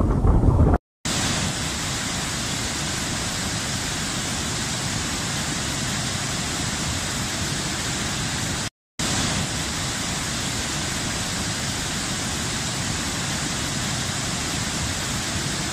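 Steady rushing of floodwater through river rapids over rocks, broken by two brief silent cuts, about a second in and about nine seconds in. Before the first cut, wind buffets the microphone.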